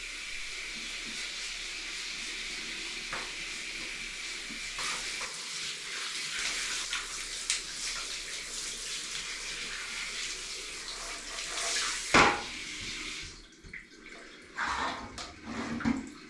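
Water running steadily from a tap while a dog is washed in a bathroom. There is a knock about twelve seconds in, the water shuts off just after, and a few light knocks and clicks follow.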